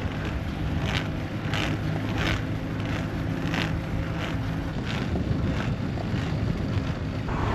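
Electric-assist recumbent trike climbing a steep road: a steady hum from the drive, with tyre and wind noise and a soft tick repeating about every two-thirds of a second. A louder rush of noise sets in near the end.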